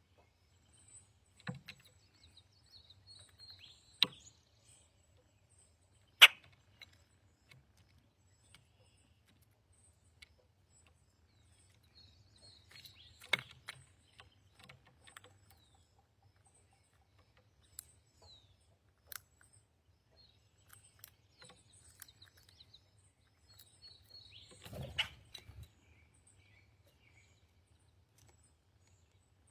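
Faint, short, high songbird chirps and twitters, broken by about six sharp knocks or taps spaced several seconds apart; the loudest knock comes about six seconds in.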